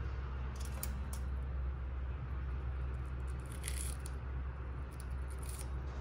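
Pacific parrotlet pecking and nibbling at vegetables in a stainless-steel tray: small clicks and crunches of beak and claws on the metal and greens, in three short clusters, over a steady low rumble.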